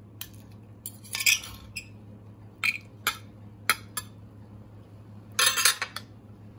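Metal knife and fork clinking and scraping against a china plate while a slice of roast stuffed chicken breast is cut: scattered short clinks, then a longer clatter near the end.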